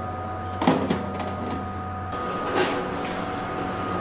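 Metal film canisters knocking and sliding as they are handled on a storage rack: a sharp clank just under a second in, another right after, and a lighter knock later, over a steady hum.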